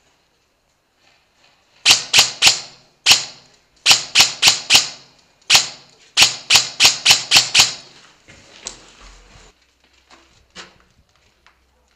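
VFC HK416 airsoft electric rifle firing rapid single shots in short strings, about fifteen in all. Each shot is a sharp crack that echoes off the concrete walls around it. A few softer knocks and handling bumps follow as the shooting stops.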